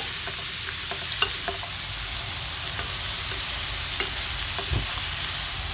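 Bitter melon and meat sizzling steadily in a frying pan, with a few short clicks of a utensil stirring them.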